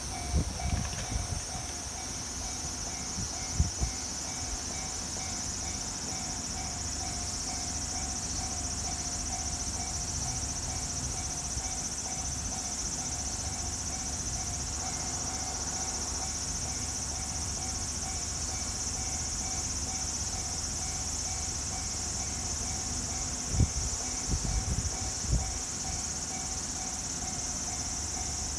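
Japanese level-crossing warning bell of the Tojo type, an electronic ding repeated evenly without a break, warning that a train is coming. Behind it runs a steady high-pitched trill of crickets, with a few low bumps near the start and again about 24 seconds in.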